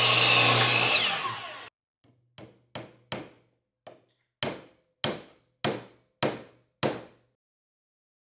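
A power saw cutting wood with a steady whine that falls in pitch and then cuts off abruptly. Then about ten sharp knocks, each ringing briefly, the later ones evenly spaced a little over half a second apart.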